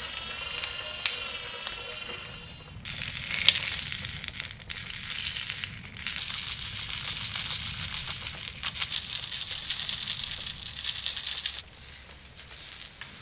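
Small metal parts clinking and rattling in a dense, uneven clatter from about three seconds in, stopping abruptly near the end.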